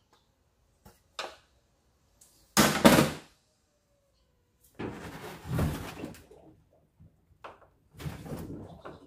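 Plastic top control-panel housing of a Panasonic top-loading washing machine being unclipped and lifted off: a light click about a second in, a loud clunk around three seconds, then longer bouts of plastic scraping and rattling.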